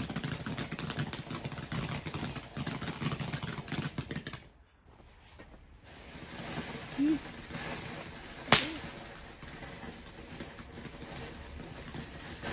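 Garden firework crackling and hissing, with many fast pops, for about four and a half seconds before the crackle cuts off. A fainter hiss follows, broken about eight and a half seconds in by one sharp bang.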